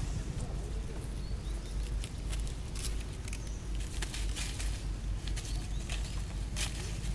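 Dry fallen leaves rustling and crackling under young macaques wrestling and scuffling, the crackles coming thicker from about three seconds in, over a steady low rumble.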